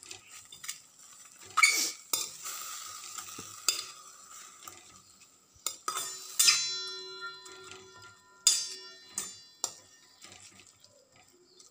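A spatula stirs and scrapes methi leaves around a steel kadhai, with scattered knocks against the pan. About six seconds in, one knock sets the pan ringing for a couple of seconds.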